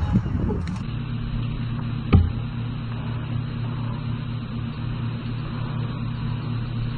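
A steady low hum, like a motor running nearby, with one sharp thump about two seconds in.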